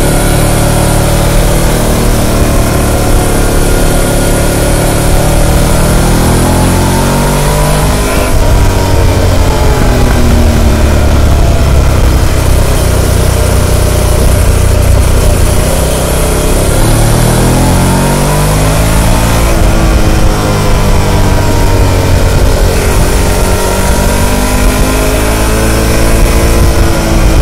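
Harley-Davidson Pan America's liquid-cooled Revolution Max 1250 V-twin, on its stock exhaust, under way with steady wind noise. The revs climb and drop several times, falling away around 8 and 20 seconds in and rising again after each.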